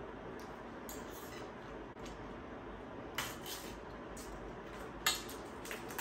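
Metal spoons and forks scraping and clinking against a steel thali and plates, a few short clinks, the sharpest about five seconds in, over a steady background hiss.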